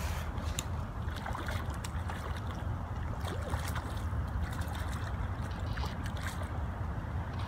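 Wind rumbling steadily on a phone's microphone, with scattered small splashes and sharp ticks as a hooked rainbow trout thrashes at the lake's surface.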